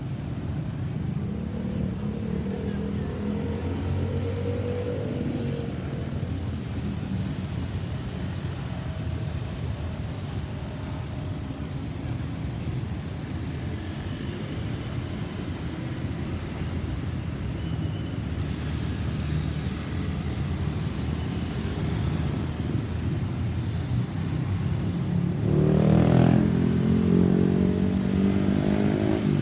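Road traffic: motor vehicle engines running and passing steadily, with a louder vehicle passing close by near the end.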